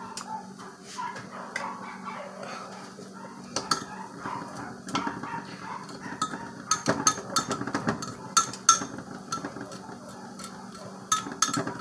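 A utensil stirring and clinking against a pot of melting ground-up soap, in scattered short clicks over a steady low hum. Dogs barking in the distance near the end.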